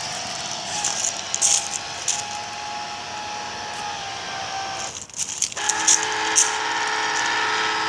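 Small electric motor of a remote-control boat whining steadily. It cuts out for about half a second around five seconds in, then starts again at a steady pitch. Scattered light clicks run over it.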